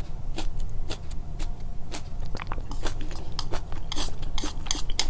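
Close-miked chewing: irregular wet mouth clicks and smacks, a few a second, over a steady low hum.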